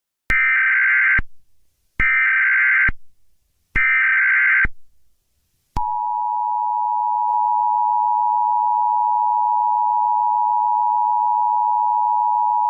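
Emergency Alert System tones: three loud screeching data bursts, each just under a second long, then a steady two-tone attention signal that starts about six seconds in and holds.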